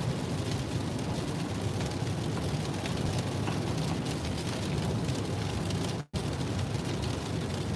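Steady road rumble and rain hiss inside a car moving along a wet highway in heavy rain: tyres on the soaked road and rain on the car. The sound cuts out for a moment about six seconds in.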